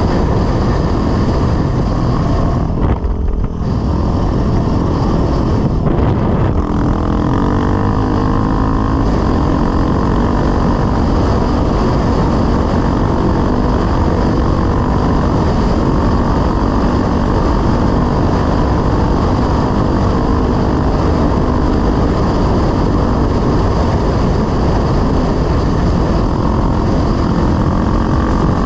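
Dirt bike engine running hard at speed, with a steady rush of wind and tyre noise. The sound briefly drops about three seconds in, then carries on steadily.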